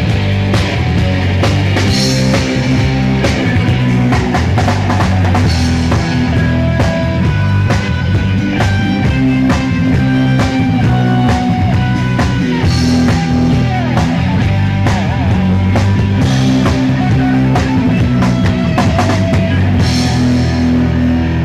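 Rock band playing an instrumental passage: drum kit, bass and electric guitar, with cymbal crashes every few seconds.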